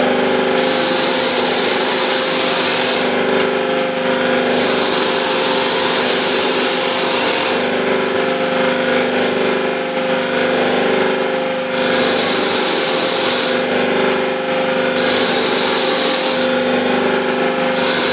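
A machine running with a steady hum, overlaid by a loud hiss that comes and goes every few seconds, each time lasting two to three seconds.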